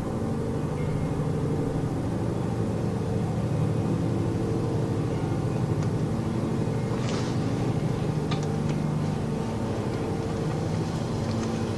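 Steady low drone made of several held tones, continuous and unbroken, from an unidentified source that resembles a distant aircraft but does not stop. A couple of brief faint crackles come about seven and eight seconds in.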